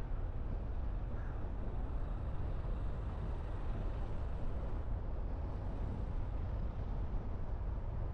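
A car being driven along a road, giving a steady low rumble of engine and tyre noise that holds level without any sudden sounds.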